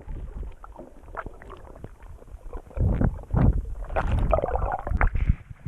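Water sloshing and splashing close to the microphone as a kayak is paddled, with irregular low gurgling thuds that grow louder about halfway through.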